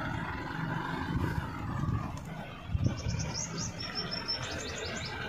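A tractor engine runs low and steady under a small bird chirping in quick runs of short high notes about three seconds in.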